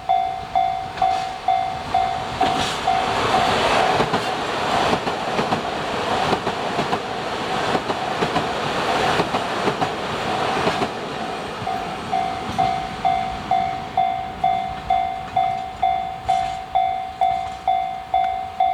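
Level-crossing bell ringing about twice a second as a KiHa 261 series diesel express passes, its wheels clicking over the rail joints. The passing train drowns the bell from about three to eleven seconds in, then the bell rings on alone.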